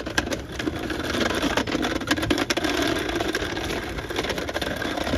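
Small plastic wheels of a Henry vacuum cleaner rolling over a rough lakeside path as it is pulled along, a continuous rattling rumble full of small clicks, starting with a sharp knock.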